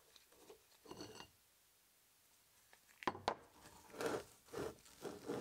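Handling of metal tripod-head parts during disassembly: a brief ringing metallic clink about a second in, two sharp clicks a little after three seconds, then several short rubbing and scraping sounds as small parts are worked loose.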